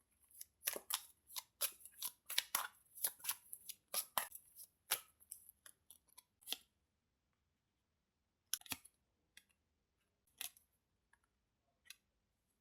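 Tarot cards being handled and shuffled: a quick run of faint, crisp card snaps and clicks, then a few single clicks further apart as the shuffling stops.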